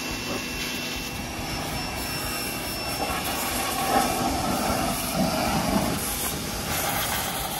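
Pressure washer running, its jet blasting grease and degreaser off a tow truck's steel wrecker bed and boom. The spray grows louder about three seconds in.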